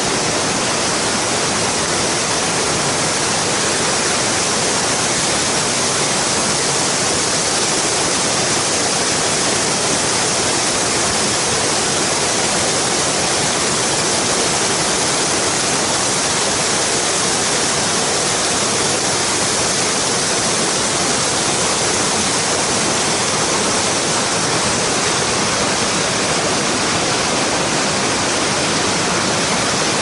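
Wide waterfall and rapids pouring over rock: a loud, steady rush of water.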